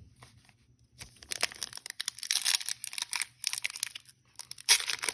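Trading cards and their foil pack packaging being handled: crinkling and rustling that start about a second in, pause briefly, then pick up again louder near the end.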